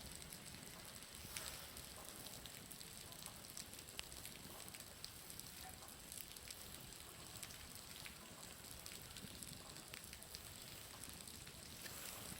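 Faint, steady patter of water dripping and falling from a building's roof, a dense run of small ticks that sounds much like a crackling bonfire, with a bonfire burning as well.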